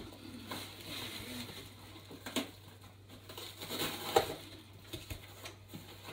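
Wrapping paper and a cardboard gift box rustling and crinkling as a present is unwrapped and handled, with a few light knocks, the sharpest about two and four seconds in.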